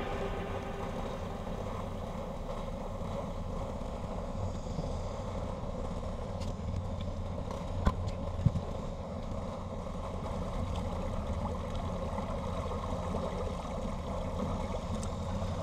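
Outboard motor of a Tracker Targa V18 Combo running at idle and pushing the boat slowly along: a steady low rumble with water and wind noise. There are two short knocks about eight seconds in.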